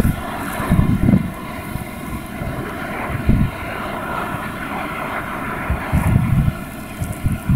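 Departing freight train: the steady drone of its M62-class diesel locomotives' two-stroke V12 engines as they head away, under irregular low rumbling from the rolling train.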